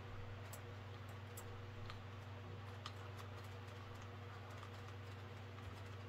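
A low, steady electrical hum with a few faint, scattered clicks over it.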